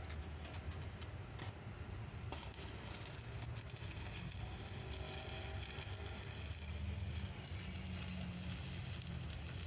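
Electric arc welding on the iron twist lock of a container chassis: after a few clicks the arc strikes about two seconds in and crackles steadily.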